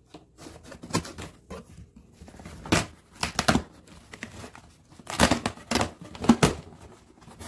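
Cardboard shipping box being opened by hand: its packing tape torn off in a series of short ripping bursts, with the cardboard flaps scraping and rustling. The loudest tears come about five to six and a half seconds in.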